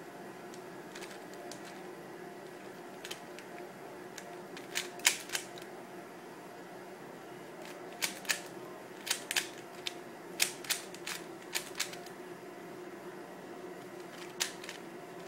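Freshly tightened plastic speed cube being turned during a solve: irregular runs of sharp plastic clicks and clacks, with pauses between bursts of turning.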